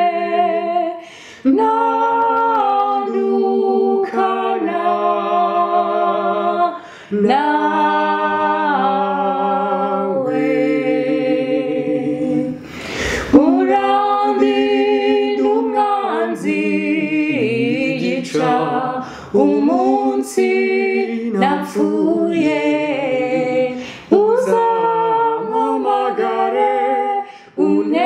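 A man's and a woman's voices singing a gospel song together a cappella, in sung phrases with wavering held notes and short breaks between them. A brief sharp knock sounds about halfway through.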